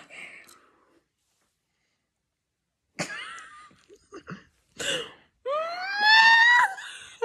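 A girl's voice: a few short breathy outbursts, then a long high-pitched squeal that rises in pitch and holds for about a second, starting after a couple of seconds of silence.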